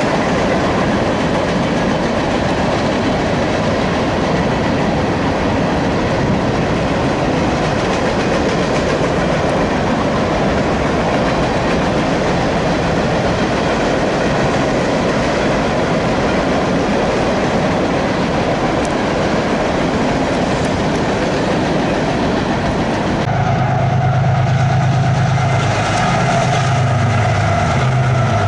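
Freight train cars rolling past: the steady noise of steel wheels running on the rails. About 23 seconds in, a steady low engine drone comes in.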